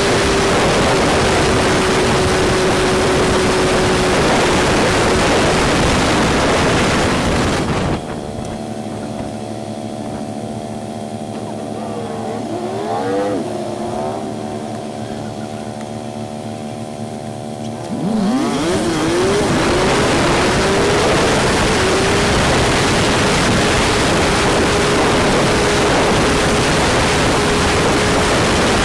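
Honda CG125 single-cylinder four-stroke motorcycle engine under heavy wind noise while riding, then idling steadily for about ten seconds when the bike stops. About two-thirds of the way through it revs up in a few quick rising steps as it pulls away through the gears, and the wind noise returns.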